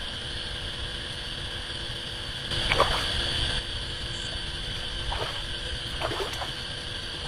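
Hooked fish thrashing and splashing at the surface of a pond as it is played on a float rod: one loud splash about three seconds in, then smaller splashes around five and six seconds. A steady high hum runs underneath.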